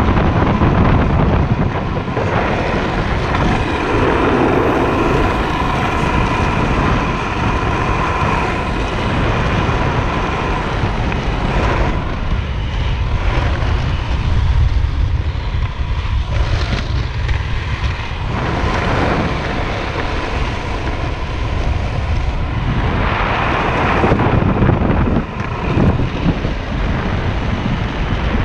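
Steady wind rush on the microphone over the rolling roar of a freebord's wheels on asphalt during a fast downhill run. A faint steady whine runs through the first half.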